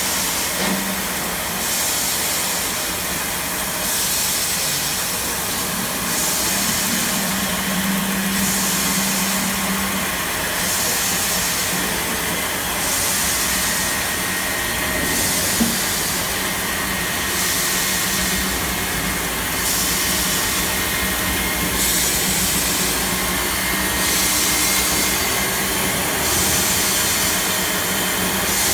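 CNC H-beam drilling line running: a steady machine hum under a high hiss that swells and falls away every couple of seconds, with a single sharp click about halfway through.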